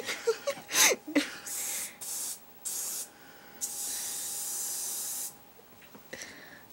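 Aerosol can of carpet cleaner spraying foam onto carpet in three hissing bursts: two short sprays, then a longer one of about a second and a half.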